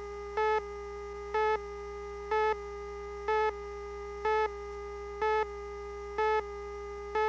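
Countdown-leader test tone: a steady buzzy tone with a louder beep once every second, eight beeps, marking off the seconds of a countdown to programme start.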